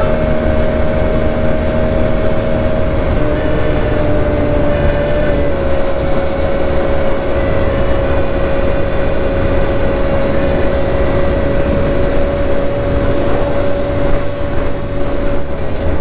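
Suzuki Birdie 50 moped's small single-cylinder engine running at a steady cruising speed on the road, a steady whine over heavy wind rumble on the microphone.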